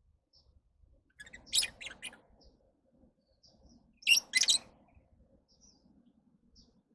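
Lovebirds chirping. Two loud bursts of shrill chirps come about a second in and again around four seconds in, with soft, short chirps scattered between them.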